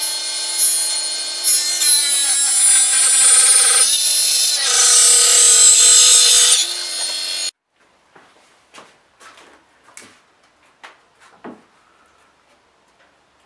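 Small Proxxon table saw running with a steady high motor whine as its blade cuts through wooden strips, the pitch shifting under load partway through. It cuts off abruptly about seven and a half seconds in, followed by a few light knocks and taps of handling on a workbench.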